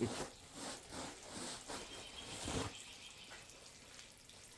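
Automatic transmission fluid dripping and splashing out of the opened transmission in irregular spatters, from an 8-speed automatic with its valve body being removed.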